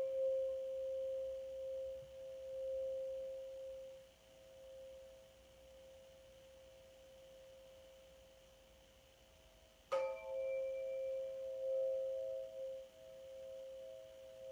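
A struck sound-healing instrument rings out with a pure, pulsing tone and a fainter second note just above it. It fades away from a strike just before, then is struck again about ten seconds in and rings on.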